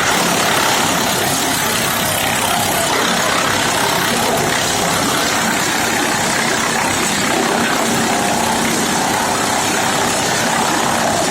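Wood chipper machine running steadily, a loud, even mechanical noise.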